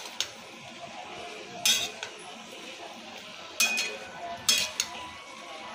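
A spatula scraping and knocking against a frying pan while potatoes, cauliflower and soya chunks are stir-fried on high heat, with a handful of sharp, irregular clinks. A steady hiss of frying runs underneath.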